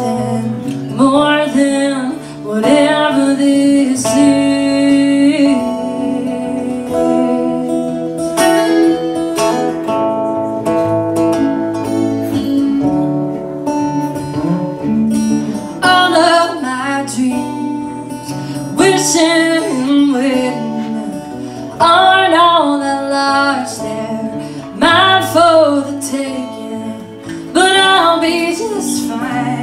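Live acoustic duo: two acoustic guitars played together under a woman's lead vocal, the singing coming in phrases over steady guitar accompaniment.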